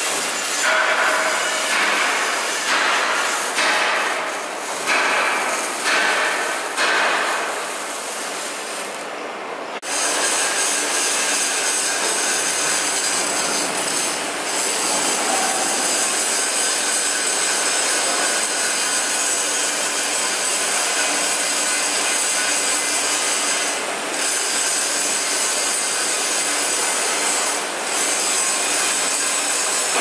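Metalworking noise: for about the first ten seconds, while a steel beam is being arc-welded, an uneven noise that surges about once a second. Then it changes abruptly to an angle grinder grinding a steel I-beam, a steady hiss that runs on with slight dips.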